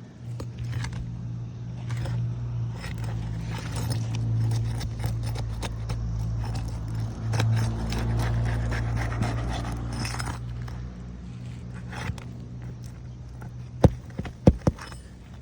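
Scraping and rustling of tools working under asphalt 3-tab shingles to free their nails, with a few sharp metallic knocks near the end. A steady low hum runs underneath.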